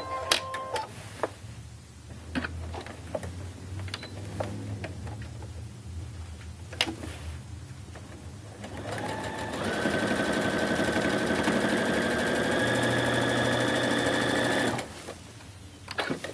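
Janome Symphony computerized sewing machine top-stitching a shirt yoke seam: clicks of handling and a short beep near the start, then the machine stitches steadily for about six seconds with a slightly rising whine and stops abruptly.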